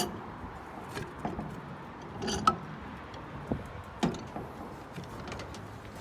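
A few scattered light clicks and taps of hand-handling a removed lawn mower blade and tools, the sharpest about two and a half seconds in.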